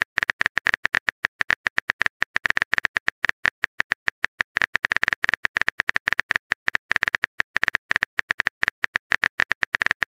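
Rapid, uneven keyboard typing clicks, several a second, a typing sound effect played while the next chat message is being written.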